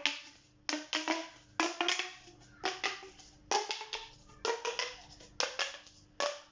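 A hand-held fidget toy clacking: sharp clicks of hard pieces snapping together, in small clusters about once a second, some leaving a brief ring.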